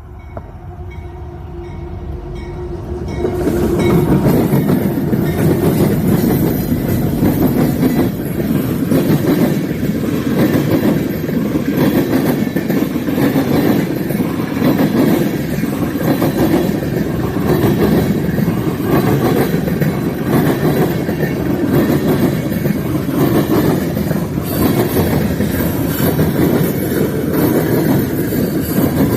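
Freight train rolling past close by: the rumble grows louder over the first few seconds, then holds loud and steady as the cars pass, with wheels clacking over the rail joints.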